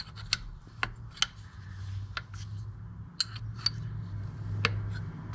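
Scattered sharp metal clicks and clinks as a 17 mm hex key is worked on a Vanagon manual transmission's fill plug to snug it up, over a low steady hum.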